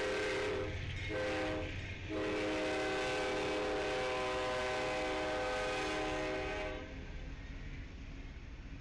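Diesel freight locomotive's air horn sounding a steady multi-note chord: a blast that stops under a second in, a short blast, then a long blast that cuts off near seven seconds in. Under it and after it, the rumble of the passing freight train's locomotives and cars.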